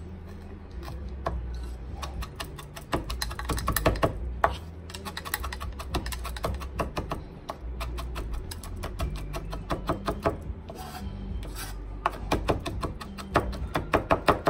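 Chef's knife rapidly chopping fresh parsley on a plastic cutting mat over a wooden board: quick runs of knife taps, loudest in flurries about three to four seconds in and near the end.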